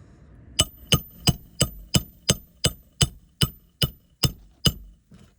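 Hammer driving a roofing nail through an asphalt shingle into the roof decking: a dozen sharp, evenly spaced blows, about three a second, each with a short metallic ring.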